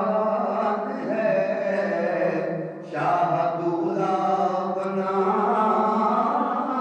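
A man's voice chanting in long, drawn-out melodic phrases, with a short break about three seconds in.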